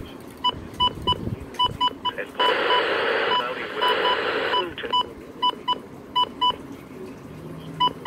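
Midland S.A.M.E. digital weather radio beeping as its buttons are pressed: a string of short, irregularly spaced electronic beeps. About two and a half seconds in, the radio gives about two seconds of static hiss while the beeps go on.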